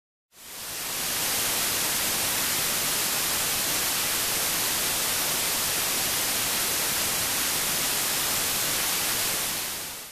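Television static: a steady, hissing white-noise rush that fades in within the first second and tails off near the end.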